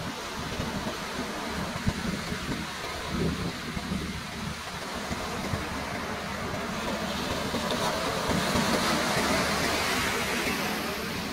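Ocean surf: waves breaking and washing in. The rush swells louder about eight seconds in, then eases.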